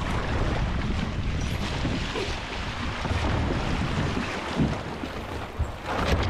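Wind buffeting the onboard camera's microphone, with water washing along the A-Class catamaran's hulls. There are two short knocks near the end.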